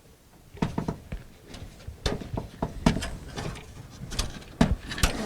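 Hands handling computer parts in a PC case during disassembly: an irregular run of clicks, taps and knocks, starting about half a second in.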